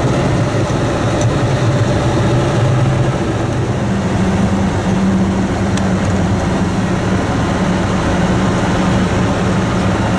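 GAZ Sadko truck's engine running steadily, heard from inside the cab, with road and tyre noise beneath it. The engine note steps up about a third of the way in and holds there.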